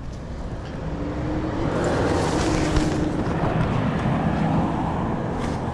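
A motor vehicle going by, its engine hum and road noise swelling over the first two seconds or so and then slowly fading.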